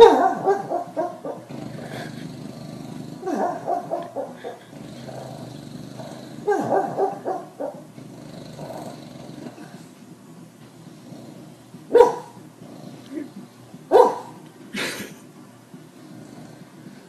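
A dog barking, growling and yipping in its sleep while dreaming: three short runs of quick, muffled woofs in the first seven seconds, then three sharp single yips near the end.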